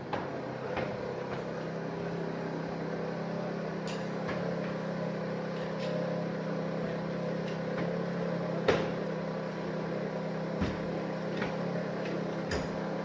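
A steady low hum with faint ticks and knocks scattered through it, the loudest knock about nine seconds in.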